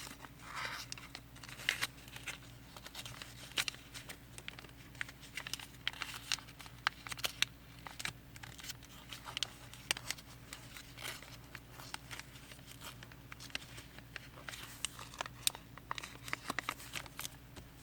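Square origami paper being folded and creased by hand: faint crinkling and rustling with many small sharp ticks as the folds are pressed down, over a steady low hum.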